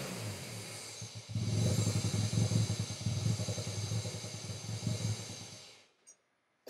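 Mazda RX-7 Turbo II's 13B twin-rotor turbo engine settling after a rev, dipping about a second in, then running unevenly with a level that rises and falls before it cuts off about six seconds in. The uneven running fits the owner's note that it is not running quite right.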